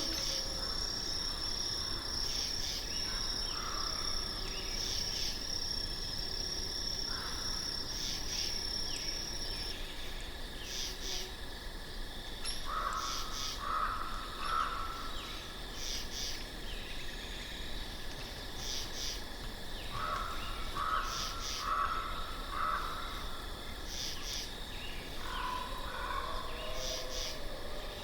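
Nature ambience of insects trilling steadily, one high trill stopping about ten seconds in, with regular short high chirps. Clusters of short, lower calls come three times, about a third, two thirds and nine tenths of the way through.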